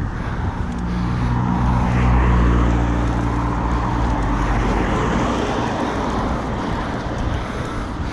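A car passing the rider, its engine and tyre noise swelling to a peak about two seconds in and then fading.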